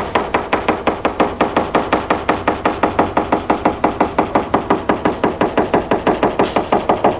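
A hammer tapping rapidly and evenly on a catamaran's fibreglass hull, about five or six short, ringing knocks a second, starting abruptly. A tap test: listening along the laminate for voids, delamination or dry glass.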